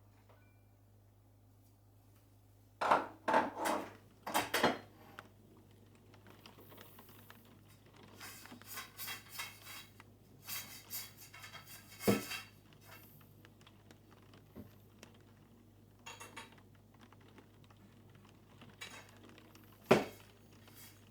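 Household handling sounds: a few sharp knocks and clatters, with a stretch of light scraping and rattling in the middle.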